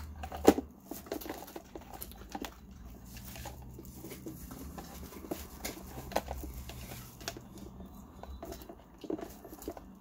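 Scattered plastic clicks and knocks from handling and turning over a Black & Decker coffee maker's plastic housing while fitting its internal hoses, with one sharp click about half a second in.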